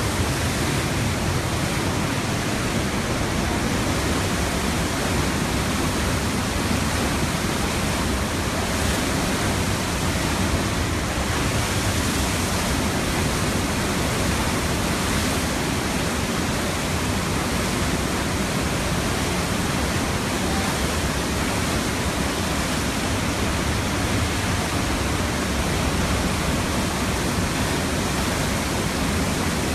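Tanaro river in full flood after torrential rain: the torrent of floodwater rushing past in a steady, unbroken roar.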